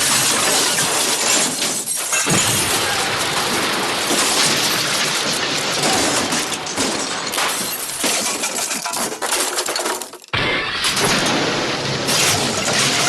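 The MGM 'elephant smash' cartoon sound effect: a long, loud crash of breaking glass shattering. It cuts out for a moment about ten seconds in, and another crash begins.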